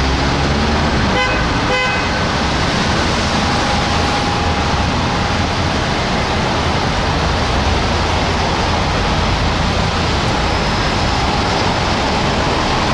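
Steady street traffic noise from fire trucks and cars moving through a busy intersection, with two short horn blasts about a second and a half in.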